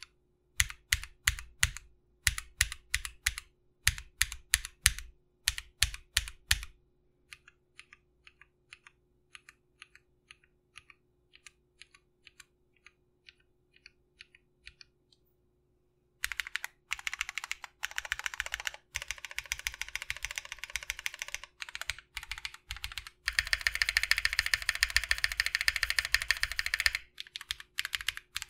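Mechanical keyboard with lubed Feker "Holy Panda" clone tactile switches on a polycarbonate plate in a Tofu65 aluminium case, being typed on. It opens with groups of loud keystrokes, then softer scattered clicks and a brief pause, then fast continuous typing that is densest near the end.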